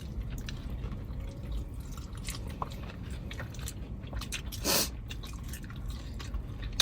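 Chicken wings being chewed close to the microphone: scattered wet mouth clicks and chewing, with one short louder rustle a little past halfway, over a low steady rumble.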